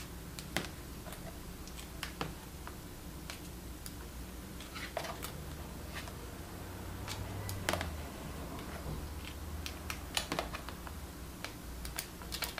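Irregular sharp clicks and snaps of a wire lead being tapped on and off a car battery terminal, sparking as it briefly powers a seized electric fuel pump to work its stuck motor loose.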